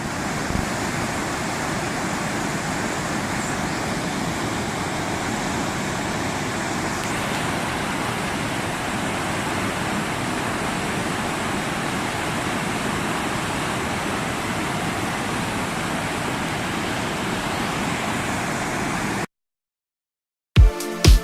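Waterfall rushing: a steady, even roar of falling water that cuts off abruptly near the end. After a brief silence, electronic music with a regular beat begins.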